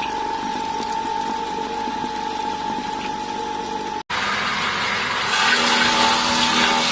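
Feed-processing machine running with a steady high whine. About four seconds in, a brief break gives way to a louder, noisier machine sound with a low hum, which gets louder again about a second later.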